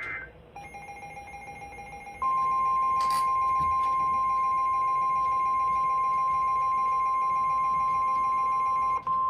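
NOAA Weather Radio audio from the WXL92 transmitter, picked up on a receiver: a lower steady buzzing tone comes in first, and about two seconds in the loud steady warning alarm tone starts and holds over it, dropping out for a moment near the end. The alarm tone signals that a warning message follows.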